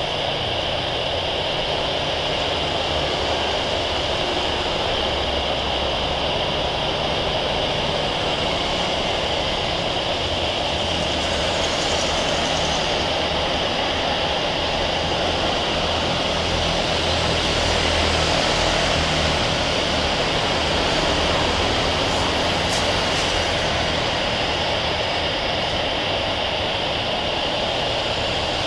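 Boeing 737-800's CFM56-7B turbofan engines at low taxi power as the airliner taxis: a steady jet whine over a low rumble, swelling slightly past the middle as it comes nearest.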